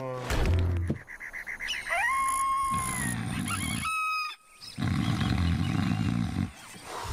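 Cartoon creature's rough, gravelly vocal sounds in two long stretches, with a rising, then held whistle-like tone about two seconds in and a short chirp near four seconds.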